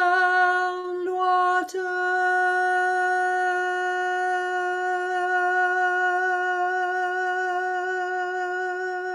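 A woman's voice holding one long, slow wordless tone on a single steady pitch, wavering slightly at first, with a brief catch about a second and a half in.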